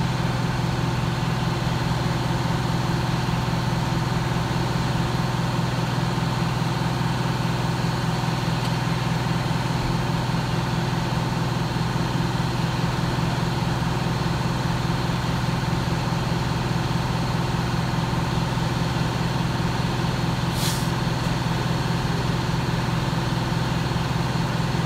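Fire truck's diesel engine running steadily at a constant speed, with a short hiss about 21 seconds in.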